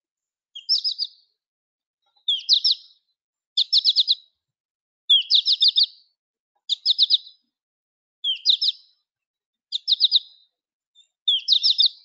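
American goldfinch flight call, the 'po-ta-to-chip' call: a quick run of three to five high chirps, repeated about every second and a half, eight times.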